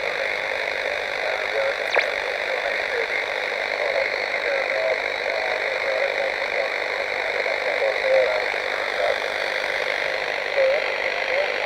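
Direct-conversion shortwave receiver tuned to the 14 MHz (20 m) amateur band, giving a steady hiss with a weak, broken single-sideband voice signal under it: the station is only faintly received. A single click about two seconds in.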